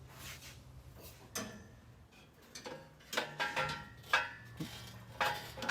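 Irregular metal clinks and knocks, several with a short ring, as a steel exhaust header is worked up into a tight space under the car and bumps against the chassis.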